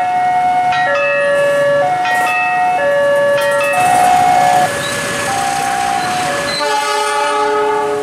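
Level-crossing warning sirens: an electronic two-tone siren alternating high and low about once a second, changing after about four seconds to a second siren with a different pattern. Near the end a held multi-tone note joins in, the horn of the approaching train.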